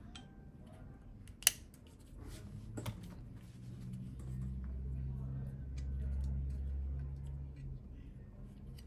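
Small clicks and taps of a mirrorless camera body being handled and turned in the hands, with one sharp click about a second and a half in. A low steady hum runs through the middle and stops just before the end.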